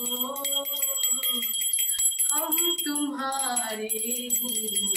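Small brass puja hand bell rung continuously, its clapper striking rapidly so the high ring never dies away. A voice sings long held notes over it.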